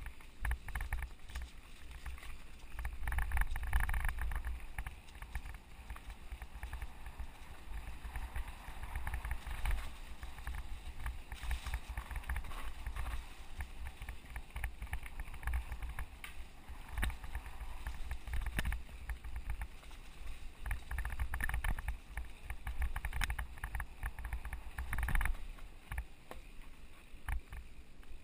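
Wind rumbling over the camera microphone while a mountain bike rides fast down a rough dirt trail, with a steady run of rattles and knocks from the bike over bumps.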